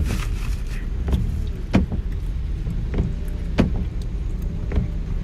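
Car cabin noise while driving: a steady low rumble, with short knocks or clicks every half second to second.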